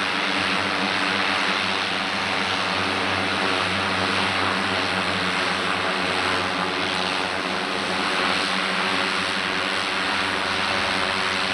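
A de Havilland Canada DHC-6-300 Twin Otter's two Pratt & Whitney PT6A turboprops running steadily as it taxis: an even propeller drone under turbine hiss.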